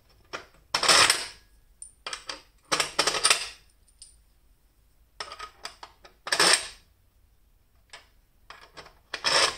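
Bolts and machined metal spacers clinking and clattering against a metal plate and a steel worktable as they are handled and set in place by hand: a string of short metallic clatters, the loudest about a second in, around three seconds, around six and a half seconds and near the end.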